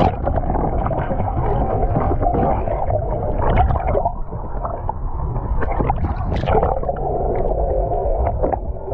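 Muffled underwater sound from a submerged camera: a steady low rumble and gurgling water, with a few brief knocks and splashes.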